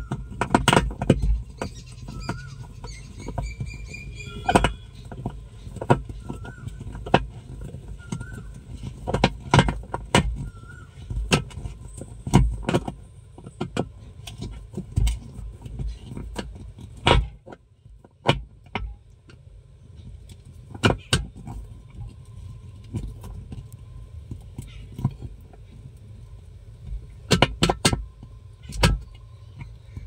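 Screwdriver turning and clicking on the centre screw of a top-loading washing machine's plastic pulsator as the wheel is tightened down: irregular metal clicks and knocks, with a steady low rumble underneath.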